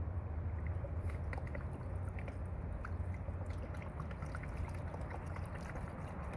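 Water sloshing in a gold pan as it is swirled and shaken to settle fine gold, with many small ticks of gravel and sand against the pan from about a second in, over a steady low rumble.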